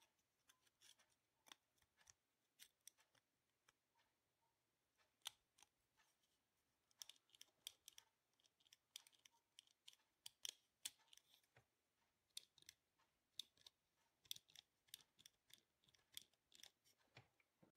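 Faint, irregular small clicks and scrapes of a thin screwdriver and fingers working on the opened plastic housing and brass contacts of a car's high/low-beam light switch. They are sparse at first and grow busier after about five seconds.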